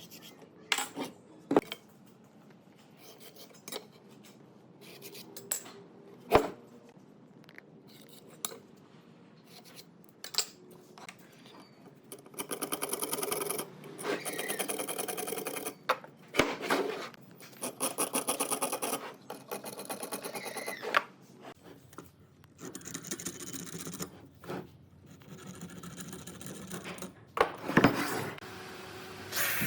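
Hand work on wood in a workshop: scattered sharp knocks of tools and timber, with several bursts of fast, rhythmic rasping lasting a second or two each.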